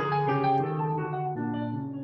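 Improvised piano music: held low notes with higher notes changing over them.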